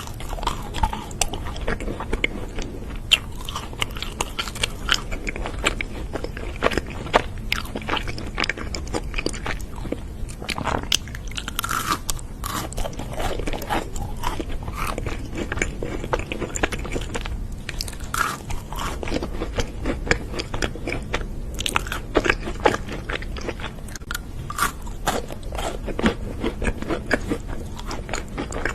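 A person biting and chewing crunchy food: a dense, steady run of crisp crunches and clicks.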